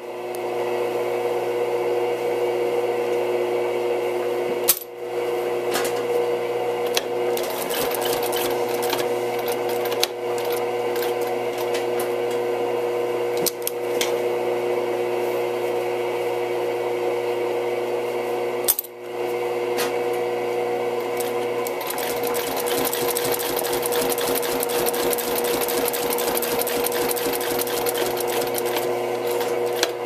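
A sewing machine stitching through folded suede leather, running with a steady hum and a rapid clatter from the needle. It stops briefly about 5 and 19 seconds in, and the clatter grows denser in the last third.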